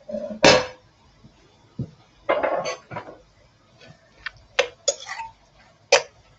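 Kitchen clatter: a glass bowl and cooking utensils knocking and clinking against each other and the pan, in a string of about eight sharp separate knocks and clinks.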